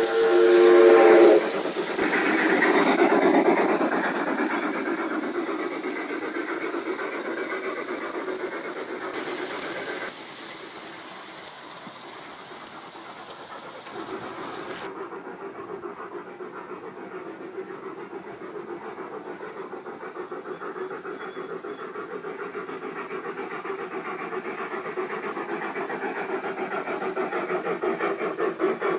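Model Blue Comet steam train: the locomotive's whistle sounds a steady chord that cuts off about a second in, then the passenger cars clatter and rumble along the rails, fading as they move away. Near the end a rhythmic chuffing and rail clatter grow louder as the locomotive comes round again.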